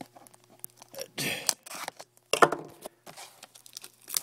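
Handling of a plastic DVD case and its packaging: two short crinkly rustles a little over a second apart, with small clicks and taps between them.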